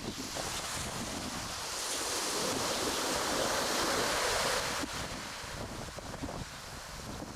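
Arctic Ocean waves washing in, one surge building about two seconds in and dropping away near five seconds, with wind buffeting the microphone.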